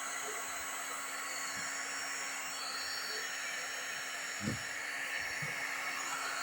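Hot-air plastic welding gun blowing steadily, a continuous even hiss with a faint steady hum. A short low knock about four and a half seconds in.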